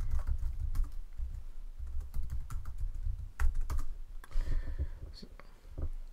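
Typing on a computer keyboard: irregular keystroke clicks with dull thumps, stopping shortly before the end.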